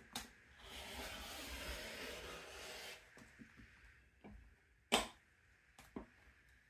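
Rotary cutter blade rolling through fabric along the edge of an acrylic quilting ruler on a cutting mat, a scratchy rasp lasting about two seconds. A couple of sharp knocks follow near the end, as the ruler and tools are handled on the mat.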